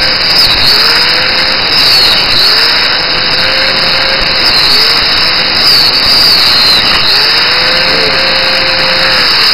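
Electric angle grinder cutting metal with an old, worn cutting disk: a harsh grinding hiss over the motor's whine, which sags in pitch as the disk bites and climbs back about five times. Near the end the motor's pitch starts to fall.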